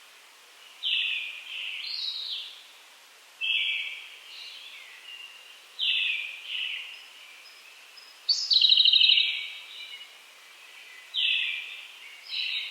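Dawn song of brown-headed thrushes and Japanese robins: short whistled phrases repeated every two to three seconds, with one longer phrase about eight seconds in that starts on a high note and runs into a rapid trill.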